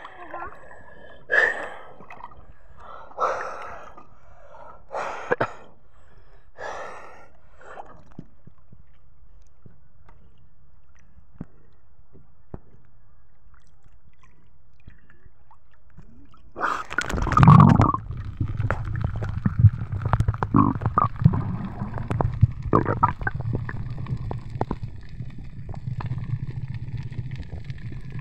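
A swimmer's heavy breaths at the water surface, four in a row about every two seconds, followed by a lull. About 17 seconds in comes a loud splash as the diver goes under, then muffled underwater rumbling and bubbling with small crackles.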